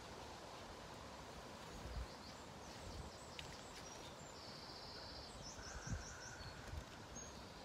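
Small birds calling faintly, a few short chirps and a quick run of notes, over a steady background hiss. Two soft low thumps come about two and six seconds in.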